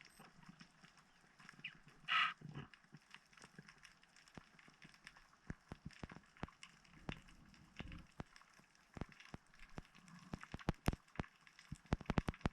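Underwater ambience full of sharp, irregular clicks and crackles, growing denser near the end, with one short, louder burst about two seconds in.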